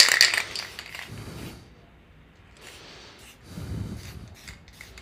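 Aerosol can of matte black spray paint: a loud hissing, rattling burst in the first half second, then quieter knocks and a few short clicks as the can is handled.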